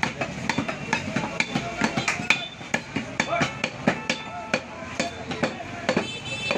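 Butcher's knife chopping beef on a wooden chopping block: sharp knocks, about three a second, unevenly spaced.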